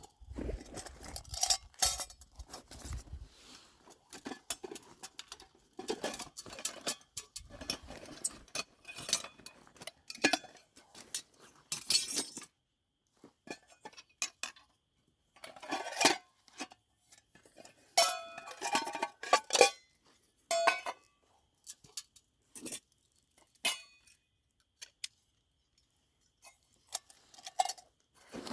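Irregular metallic clinks and knocks, like small metal gear or cookware being handled, with short quiet gaps between bursts of handling.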